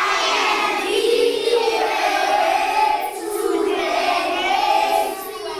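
A group of children singing together in unison, many voices holding and moving between notes of a simple tune.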